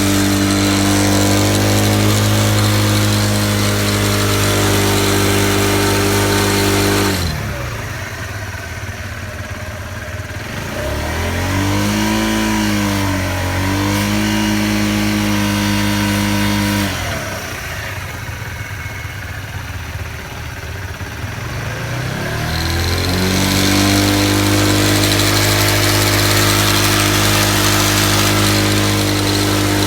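2017 Kawasaki Z125's single-cylinder engine held at steady high revs, dropping to idle about seven seconds in, blipped and held at middling revs, dropping back to idle, then revved up and held again in the last third. The owner calls the noise an odd one.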